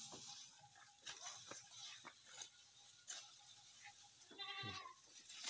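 Faint scattered clicks and knocks, then a single wavering bleat from livestock a little over four seconds in.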